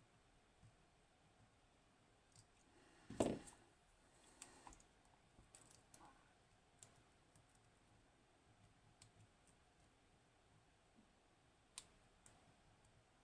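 Faint, scattered clicks of a pick working the pins of a Hori Trident high-security pin tumbler lock, with one louder knock about three seconds in.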